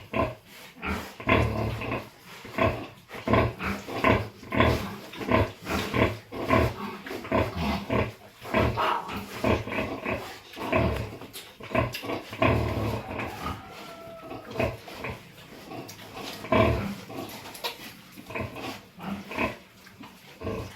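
Pigs grunting, many short grunts one after another with hardly a pause.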